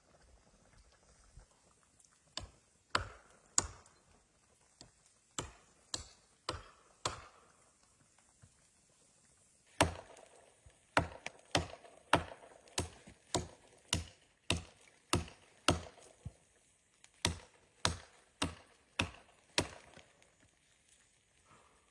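Wood being chopped: a series of sharp chops, scattered at first, then a steady run of about one and a half chops a second from about ten seconds in, with one short pause.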